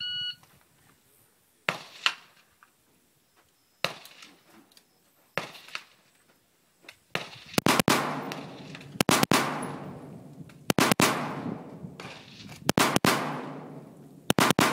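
A shot timer gives a short electronic start beep, then an AR-15 rifle fires. There are a few single shots spaced over the first five seconds, then louder double taps about every two seconds, each with a long echoing tail.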